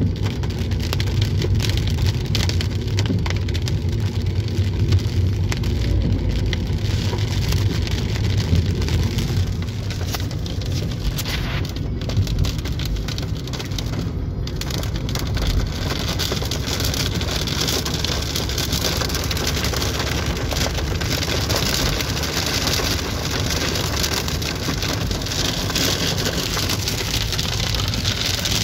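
Heavy rain pelting a moving car's windows and roof, heard inside the cabin over the low rumble of road noise. The rain hiss grows stronger about halfway through.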